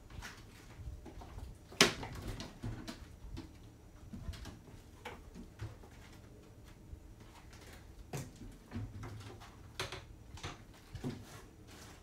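Wooden kitchen cabinet doors being opened and shut with scattered clicks and knocks, one sharper knock about two seconds in, as things are moved about during a search.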